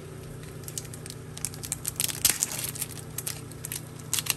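Foil wrapper of a Topps Chrome Cosmic trading card pack crinkling and tearing as it is ripped open by hand: a run of sharp crackles, loudest about two seconds in and again near the end.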